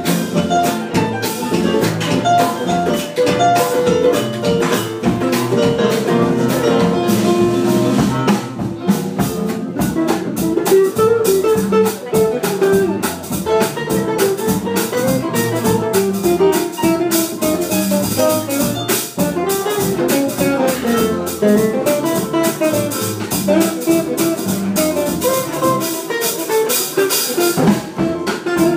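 Small jazz band playing live: violin, double bass, piano, guitar and drum kit, with a steady beat on the drums.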